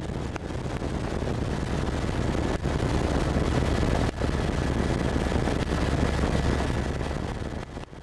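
Helicopter engine and rotor noise heard inside the cabin: a dense, steady drone with a low hum. It fades out near the end.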